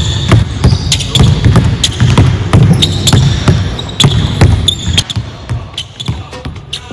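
A basketball dribbled hard on a hardwood court through between-the-legs and crossover moves: a quick run of sharp bounces, about two to three a second, getting lighter near the end.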